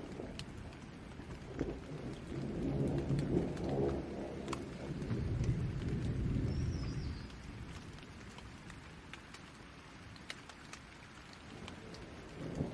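Steady rain with scattered drop ticks, and a rolling rumble of thunder that swells and fades between about two and seven seconds in. A short high chirp sounds about halfway through.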